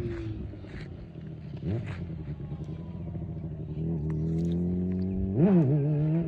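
2008 Honda CBR600RR's inline-four engine through its Yoshimura slip-on exhaust, ridden on a test ride. The engine note drops away with a quick rev blip about two seconds in, then builds again to a sharp rev near the end.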